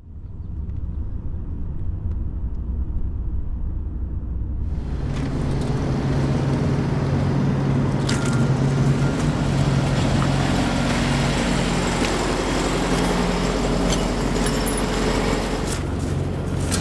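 Low vehicle rumble and traffic noise. About five seconds in, a steady engine hum and hiss come up, with a few light clicks.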